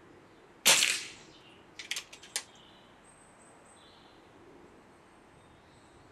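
Reximex Zone regulated PCP air rifle firing a .177 pellet: one sharp crack with a short ring-off. About a second later comes a quick run of four or five sharp clicks from the rifle's action.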